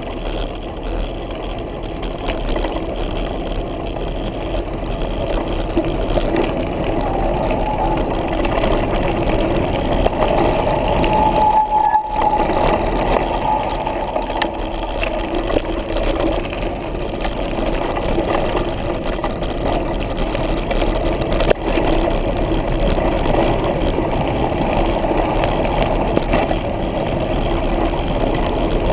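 Trek Rumblefish full-suspension mountain bike rolling fast downhill on a dirt trail: steady rushing noise from tyres, rattling bike and wind on the microphone. A single sharp knock comes about 21 seconds in.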